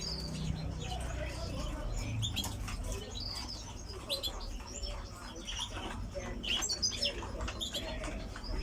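Small caged finches chirping in short high calls, with wings fluttering as a goldfinch is caught by hand.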